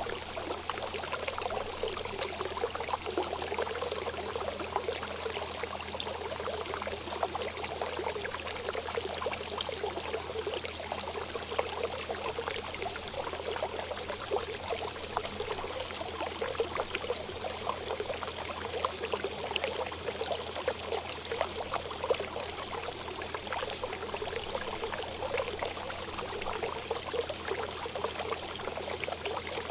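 Running water, a steady splashing stream or trickle that goes on without a break.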